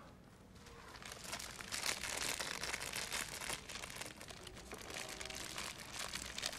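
A dense crackling, rustling noise made of many fine clicks, building up about a second in and running on.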